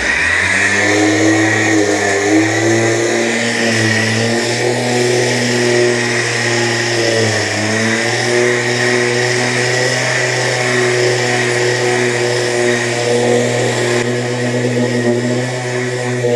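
Random orbital sander running steadily while sanding a painted plastic bumper with 120-grit paper. It gives an even motor hum with a high whine and the hiss of the abrasive on the paint.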